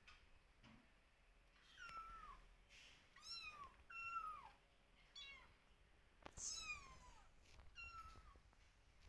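Young kittens meowing again and again, calling for their mother: about six thin, high-pitched cries spaced a second or so apart, each falling in pitch.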